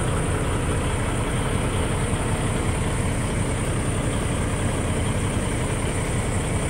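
Kenworth T680 semi truck's diesel engine idling steadily, heard from inside the cab, with a faint steady high-pitched whine over it.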